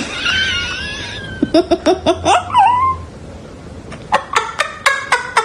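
An animal's high-pitched wavering cry, then a quick run of short calls and a cry that falls and rises again; about two-thirds of the way in comes a second run of short, evenly spaced high calls.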